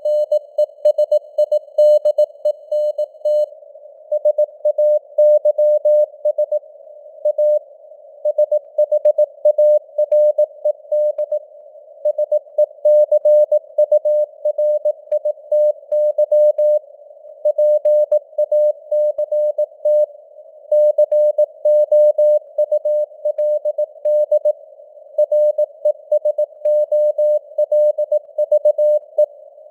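Morse code (CW) at 18 words per minute: a single mid-pitched tone keyed in dots and dashes with short gaps between characters and words, over a narrow band of simulated radio receiver noise.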